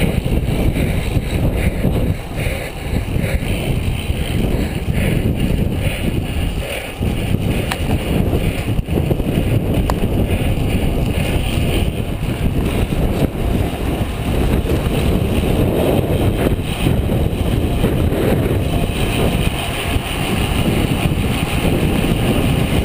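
Wind buffeting the microphone of a camera on a road bicycle at racing speed, a loud, gusting rumble, with the riding noise of the bike pack underneath.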